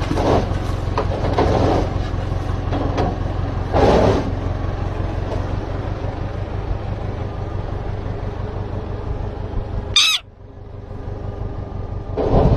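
Tractor engine running steadily, with a bird giving several harsh alarm calls at its eggs in the first four seconds. A brief shrill call comes about ten seconds in.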